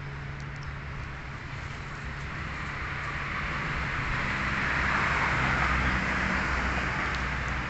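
Toyota Hilux Sport Rider's engine idling with a steady low hum and an even hiss over it. It grows louder through the middle, then eases a little near the end.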